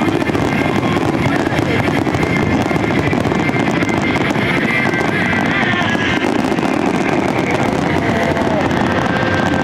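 Aerial fireworks in a dense barrage: shells bursting and crackling in a continuous, unbroken rush of sound.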